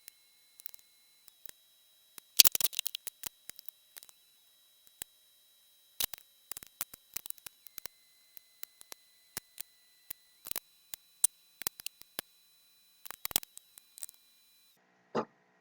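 Scattered clicks, taps and light clatter of tools and engine parts being handled during hand work on the engine's coolant hoses and clamps, with a denser burst of clatter about two and a half seconds in and another near the end.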